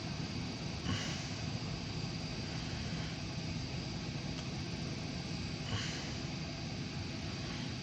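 Diesel locomotives of a light power move running, a steady rumble with a short, sharper sound twice, about five seconds apart.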